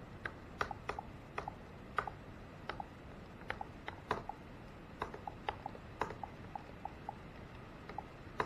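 Laptop keyboard keys pressed one at a time, irregular sharp clicks a few times a second, as setup screens are stepped through with the keyboard alone. A steady fan hum runs underneath.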